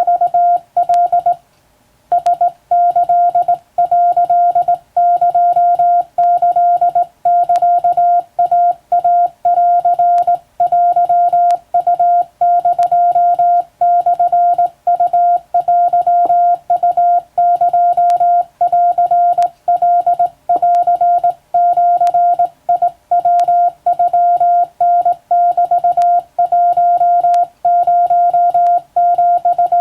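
Morse code sent by hand on a telegraph key, heard as a single steady beep keyed on and off into dots and dashes at a quick, even pace; the text is Japanese Wabun code from a telegram-sending drill. There is one short break in the keying about a second and a half in.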